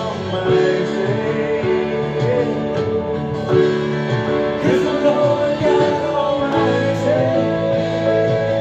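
Music: a contemporary worship song with guitar over held chords and a singing voice.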